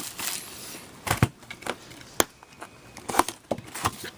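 Scattered light taps, clicks and faint rustling as a cardboard hobby box of trading card packs is handled and opened.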